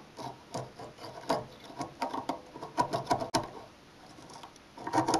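Screwdriver blade scraping and clicking against the terminals of a microwave oven's high-voltage capacitor as they are shorted to discharge it, in an uneven run of clicks with one sharp click just over three seconds in and a short burst of scraping near the end.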